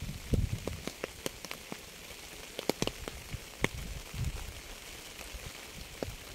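Rain falling: a steady hiss with irregular sharp taps of drops striking a surface, and a few soft low thuds.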